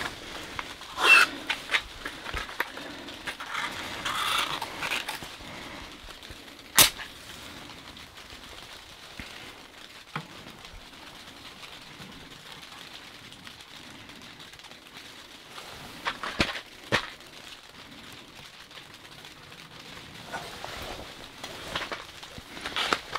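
A small sheet-metal tent wood stove being lit: paper kindling is rustled and handled at the open firebox. There is a single sharp crack about seven seconds in and a few knocks later on, while the freshly lit paper fire crackles quietly.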